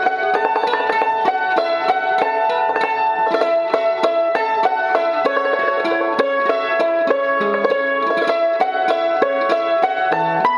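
Cambodian khim (hammered dulcimer) and krapeu (crocodile zither) playing a traditional Khmer melody together in a quick, even stream of struck and plucked notes.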